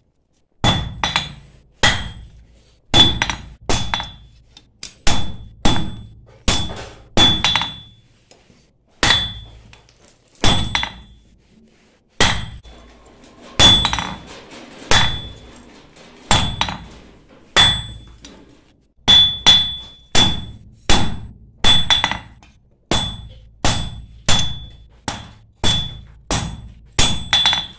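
Hammer blows on a red-hot falchion blade held on an anvil, in a steady run of about one strike a second, some in quick pairs. Each blow has a short, high ring from the anvil, with a couple of brief pauses between runs.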